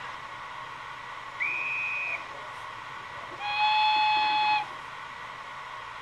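Sound decoder of a Märklin 37575 model DB E 03 001 electric locomotive playing signal sounds over a steady hum: a short high whistle about a second and a half in, then a longer, louder, lower horn blast about two seconds later.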